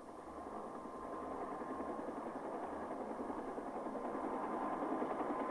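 A steady, engine-like rushing drone that slowly grows louder, with a faint thin whine held through it.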